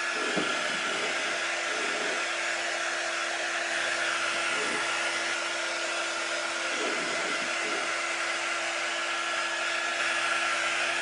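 Handheld craft heat tool running steadily, blowing air to dry wet permanent ink on a glass jar.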